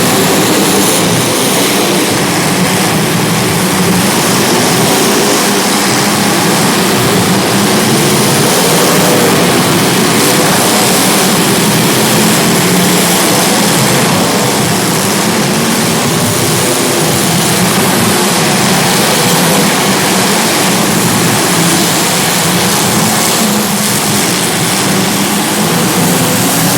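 Several small racing engines running together, their pitches wavering up and down as the vehicles throttle and lift, over a steady wash of engine and track noise.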